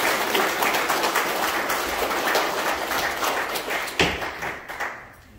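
A room full of people applauding, many hands clapping together, dying away near the end. A single sharp knock sounds about four seconds in as the clapping fades.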